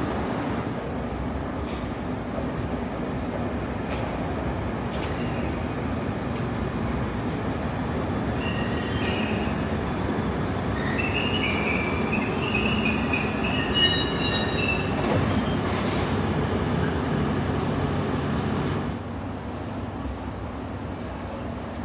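London Underground train running through the station with a steady rumble, its wheels squealing on the rails for several seconds midway. The rumble drops off suddenly near the end.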